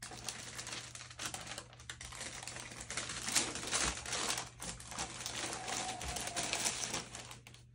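Tissue paper and a paper insert rustling and crinkling as hands pull them back inside a cardboard shoebox: a dense run of crackles that stops shortly before the end.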